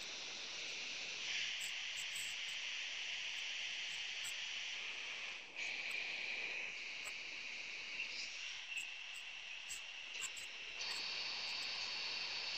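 A steady high-pitched hiss with no tune or voice in it, shifting suddenly in loudness and pitch every few seconds.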